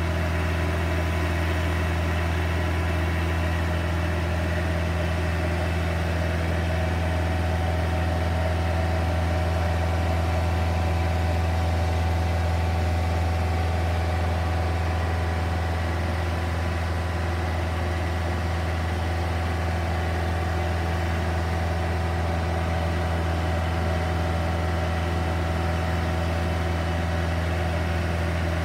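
Diesel engine of a Genie Z-62/40 articulated boom lift running at a steady speed, with a constant low hum and no change in pitch or level.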